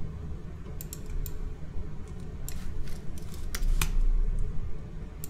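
Computer keyboard keys and mouse buttons clicking: a scattering of short, sharp clicks at uneven intervals, over a steady low background noise.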